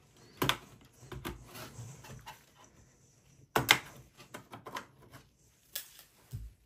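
Clicks and knocks of a DDR4 RAM stick being unlatched and pulled from its motherboard slot in a desktop PC, with the sharpest snap about three and a half seconds in and lighter handling noise of gloved hands against the metal case between. A soft low thump near the end.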